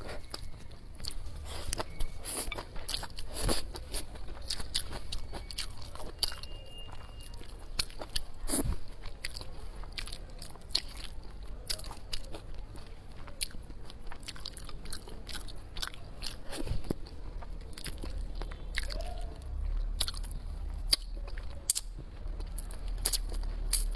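A person biting and chewing crunchy food close to the microphone, with many irregular sharp crunches and clicks.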